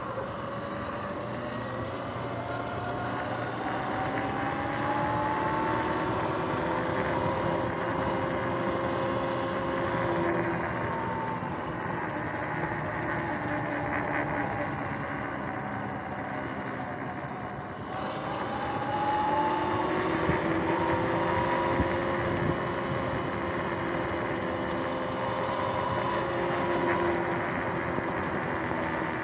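Sur-Ron X electric dirt bike riding along, its motor and new drive chain whining. The whine climbs in pitch as the bike speeds up in the first few seconds, sinks in the middle, and climbs again about two-thirds of the way through, over a steady rush of road and wind noise.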